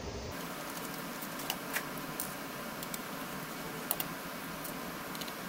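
Light, irregular clicks and taps of fingers handling a mini PC's mainboard and plastic case, over a steady hiss.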